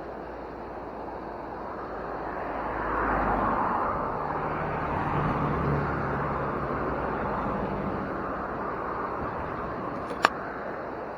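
A motor vehicle going past, its engine and tyre noise swelling and then fading over several seconds. There is a sharp click near the end.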